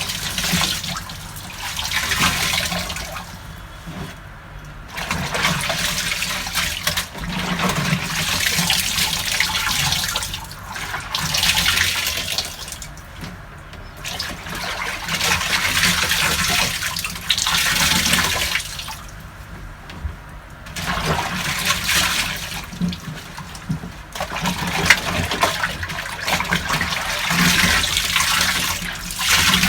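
Water sloshing in the wash tub of a Hisense twin tub washing machine as it churns clothes in rinse water. The swishing comes in repeated swells a few seconds long, with short lulls between them.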